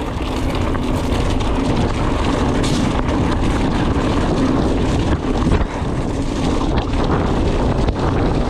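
Wind rushing over the microphone and tyres rumbling on a gravel fire road as a mountain bike descends at high speed, with frequent small knocks and rattles from the bike over the rough surface.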